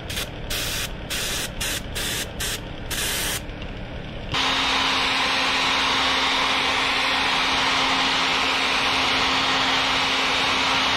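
Airbrush spraying paint in a series of short hissing bursts. About four seconds in, a hair dryer switches on and runs steadily with a low hum, heat-setting the fresh paint.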